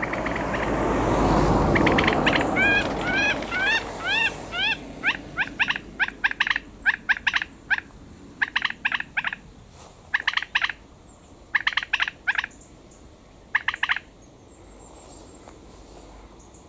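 A series of animal calls: a rising note repeated about six times, then quick rattling bursts of several short notes each, coming every second or so and stopping shortly before the end. A rush of noise fills the first two seconds.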